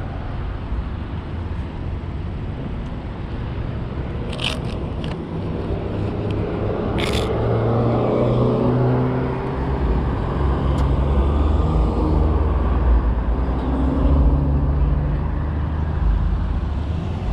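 Low rumbling wind and road noise on the camera microphone, growing louder about halfway through, with a low vehicle hum that shifts in pitch. Two sharp clicks sound around four and seven seconds in.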